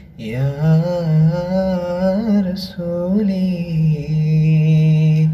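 A voice singing a Malayalam devotional song in praise of the Prophet: drawn-out, wavering melodic notes with no clear words, settling into one long held note near the end.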